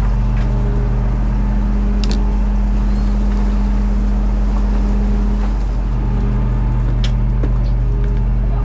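Fishing boat's engine running at a steady, loud hum, with a couple of brief light knocks about two and seven seconds in.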